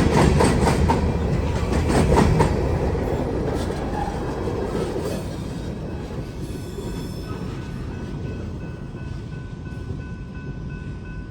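Wheeling & Lake Erie freight train rolling past, its wheels clacking in a steady rhythm over the rail joints and fading as it moves away. From about halfway in, a thin steady wheel squeal rises above the fading rumble.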